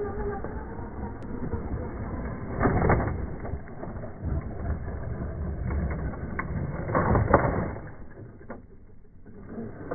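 Vintage 2wd electric RC buggy, RC10-type, driving over a dirt track: motor and drivetrain running with tyres on loose dirt, with louder surges about three and seven seconds in and a quieter stretch near the end.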